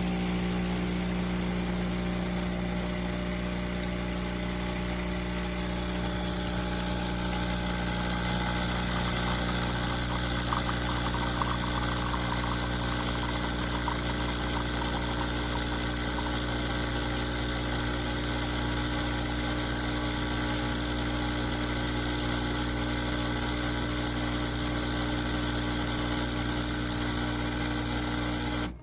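KEENSTAR 20-bar espresso machine running with a steady, buzzing pump hum that cuts off abruptly at the end.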